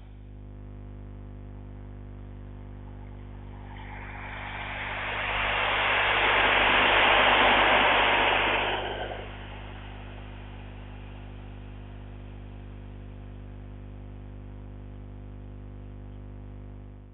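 A train of two Class 37 diesel locomotives hauling two Class 73 locomotives passes by, its noise swelling to a peak and fading away over about five seconds. A steady low electrical hum runs underneath.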